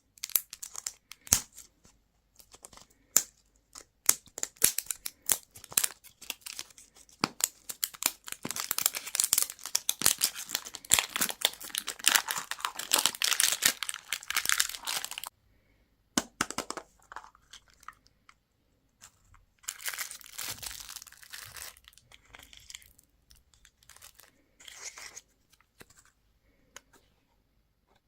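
Candy wrappers crinkling and tearing open by hand. Scattered crackles come first, then a long stretch of continuous crinkling that stops suddenly, then shorter bursts of crinkling later on.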